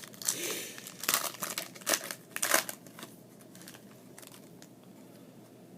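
Baseball cards and their packaging being handled, crinkling and rustling in several short bursts over the first three seconds, then going quieter.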